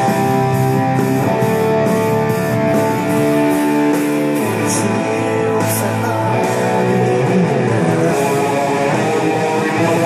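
James Tyler SE DX electric guitar played through a DigiTech GSP1101 preamp and Lexicon MPX1 effects unit: a lead line of long held notes, some with vibrato.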